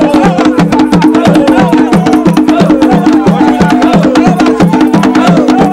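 Traditional drumming for a Makishi masked dance: drums of two pitches beating a fast, steady interlocking rhythm, with sharp clicks over it. Voices sing falling phrases that repeat about once a second.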